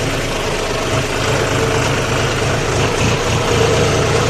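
Tractor's diesel engine running steadily at a low, even speed.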